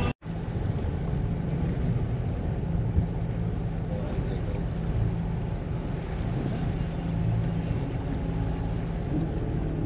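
Steady low rumble on board a sailing yacht under way at sea. It starts right after a brief cut-out.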